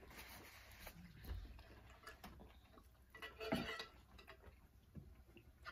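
Quiet table sounds during a meal: faint scattered clicks and soft rustles of hands handling food and napkins, with one brief louder rustle about three and a half seconds in.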